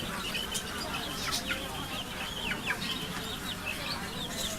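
Many birds chirping, a busy overlapping run of short, high chirps that fall in pitch, over a low background hubbub.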